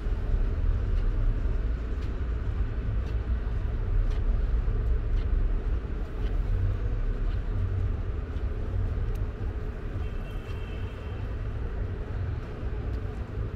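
Steady low rumble of city street traffic, with a brief high squeal about ten seconds in.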